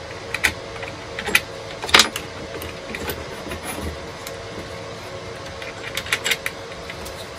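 Scattered clicks and knocks of hand-handling the plastic and metal parts of a disc sander while an Allen key is used on the sanding table's bracket and the table is worked loose. One sharper knock comes about two seconds in, and a quick run of clicks near the end.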